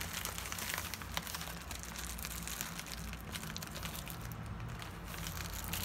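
Scissors cutting along the edge of a plastic bubble mailer: small irregular snips and crinkling of the plastic, over a low steady hum.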